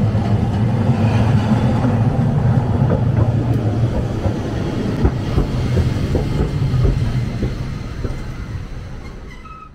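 A rail vehicle running past close by: a steady low hum and rumble with irregular knocks in the middle, fading away over the last couple of seconds.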